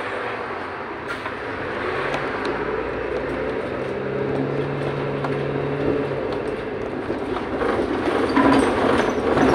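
Mercedes-Benz Citaro O530 FL city bus under way, heard from inside the cabin: the engine running with a steady hum and small rattles and clicks from the worn, shaking bodywork, getting louder near the end.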